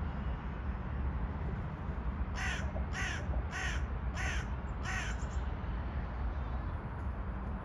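A crow cawing five times in quick, even succession, starting about two and a half seconds in, over a steady low rumble.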